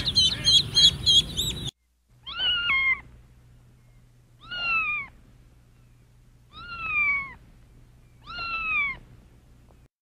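A crowd of young chicks peeping rapidly, cut off about a second and a half in; then a kitten meowing four times, about two seconds apart, each meow falling slightly in pitch.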